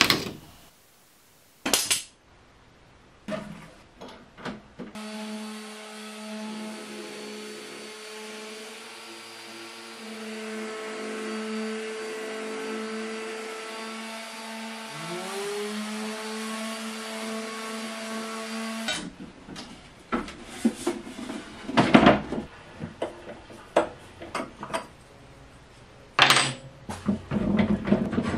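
An electric sheet sander runs steadily across a wooden tabletop for about fourteen seconds in the middle. Before and after it come irregular knocks, clicks and scrapes of hand tools and wood being handled.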